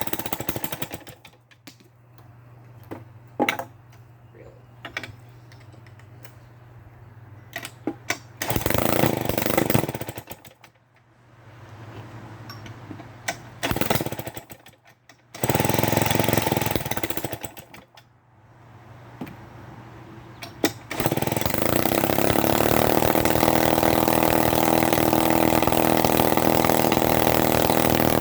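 1950s Lombard 35 gear-drive chainsaw engine being started: it fires in several short bursts that die out. About 21 seconds in it catches and keeps running steadily. It runs weakly because of 60 psi compression and a stator plate far out of rotation, which leaves the ignition timing badly off.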